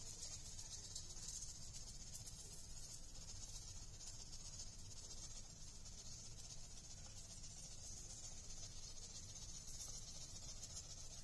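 A steady high-pitched hiss with a low hum underneath, unchanging throughout, with no distinct events.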